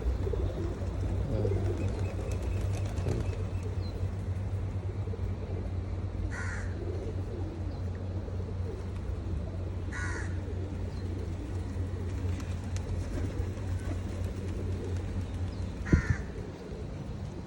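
Pigeons cooing softly, with a crow cawing three times, single caws a few seconds apart. A steady low hum runs underneath, and a thump comes near the end.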